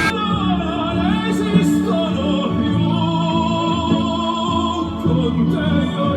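Background music with a sung voice over long held notes.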